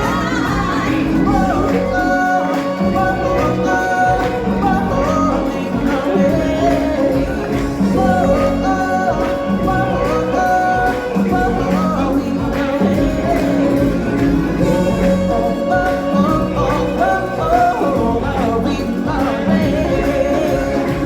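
Stage show music with singers, the voices holding long sustained notes over a full accompaniment.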